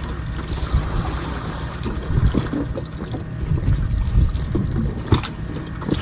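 Wind buffeting the microphone on a fishing boat at sea, an uneven low rumble with a couple of short clicks near the end.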